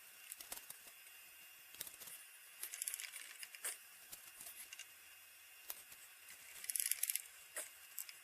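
Light handling sounds at a workbench: scattered small clicks, taps and brief crackly scrapes with pauses between them, with a short cluster just before the end.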